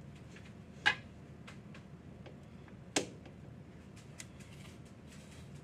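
Two sharp clicks about two seconds apart, with a few faint ticks between: a wooden-handled pastry brush knocking against a butter dish as it is dipped.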